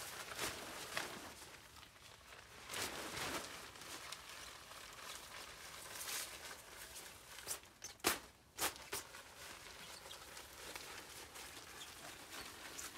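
Fabric of a DOD Kamaboko tunnel tent rustling and flapping as it is lifted and handled during pitching, with footsteps on dry leaves. Two sharp clicks come about eight seconds in.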